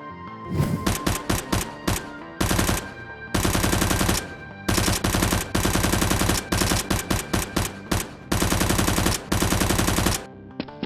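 Automatic gunfire: a few single shots, then repeated bursts of rapid fire, each about half a second to a second long, with short gaps between.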